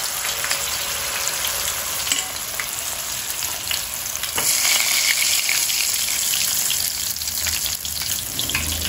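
Battered small shrimp fritters deep-frying in hot oil in an aluminium pot: a steady sizzle that grows louder about four and a half seconds in, with a light click just before.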